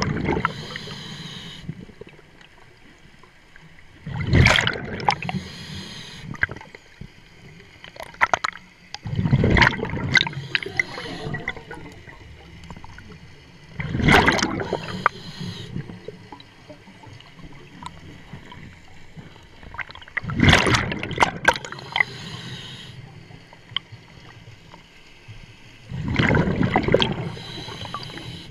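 Scuba diver breathing through a regulator underwater: a loud gurgling rush of exhaled bubbles about every five to six seconds, with a quieter hiss between breaths.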